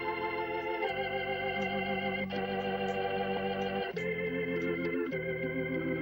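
Organ music playing slow held chords, changing chord about a second in and again twice near the end.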